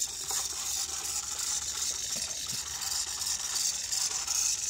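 Small motor in an Arduino-driven antenna tracker prototype, turning the platform as it hunts for the brightest light, with a faint gear rattle.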